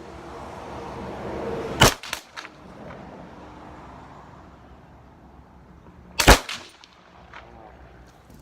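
Two rifle shots about four and a half seconds apart, each sharp crack followed by a couple of fainter cracks.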